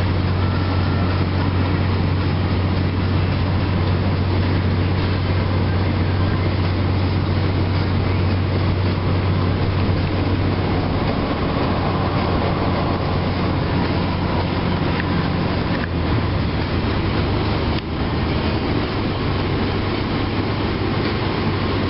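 Car interior noise while driving slowly: steady engine and road noise with a strong low hum.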